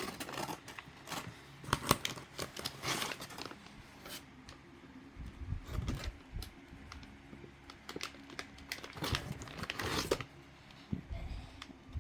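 Plastic filament packaging crinkling and rustling as it is handled and pulled open, with scattered sharp clicks and a few dull thumps from the spool and box being moved.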